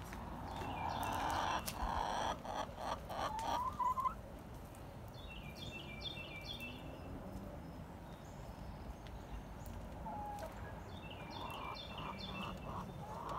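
Domestic hen clucking in short repeated notes, with brief runs of high bird chirps. The first few seconds carry a louder rustling noise with a few sharp taps.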